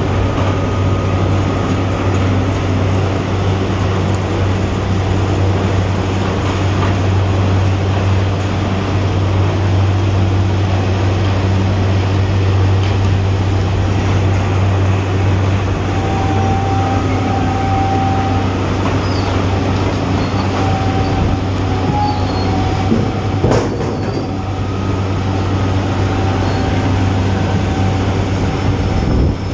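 Sugar factory cane-unloading machinery running steadily with a deep hum. A thin squeal comes and goes from about halfway, and there is a single knock near the end.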